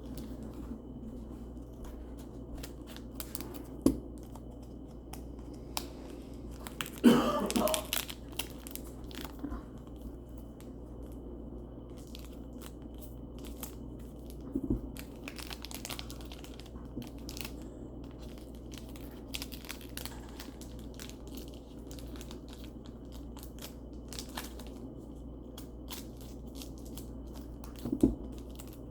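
Cards and crinkly packaging being handled: rustling and crinkling with scattered small clicks and a few short sharp knocks. A louder, longer rustle comes about seven seconds in.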